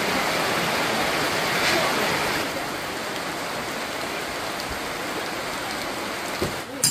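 Rain falling steadily, an even hiss that gets somewhat softer after about two and a half seconds. There is a sharp knock near the end.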